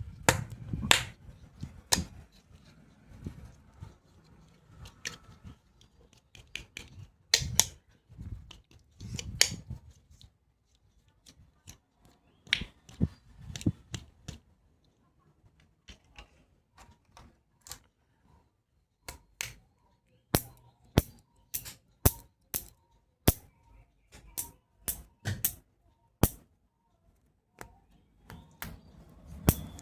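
Hard plastic toy doctor's tools being handled: a series of sharp clicks and taps with soft handling rustle between them, becoming a fairly regular run of about two clicks a second from about twenty seconds in.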